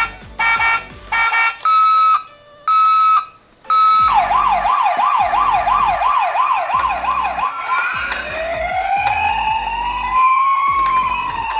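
Electronic siren sounds of toy ambulance miniature cars. Three short beeps, then three longer steady beeps, then a fast yelp sweeping up and down about three times a second. About eight seconds in, it changes to slow wails, several sirens at different pitches rising and falling over one another.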